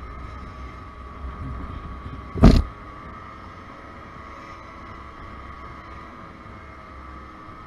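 Motobi BS1 50 cc scooter running at a steady cruise: a low rumble with a steady high whine over it. A single brief, loud thump about two and a half seconds in.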